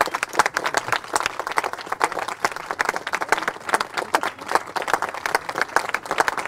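Large crowd applauding, many people clapping densely and continuously.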